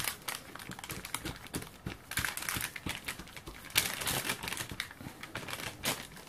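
Baking parchment crinkling and rustling as a silicone spatula presses and smooths a sticky seed dough on it, with irregular soft scrapes and crackles; one sharper crackle a little past halfway.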